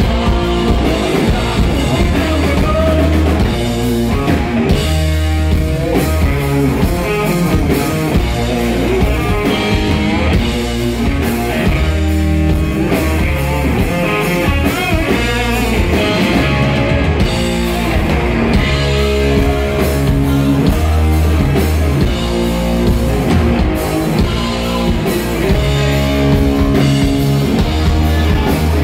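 Rock band playing live and loud: electric guitars over a drum kit.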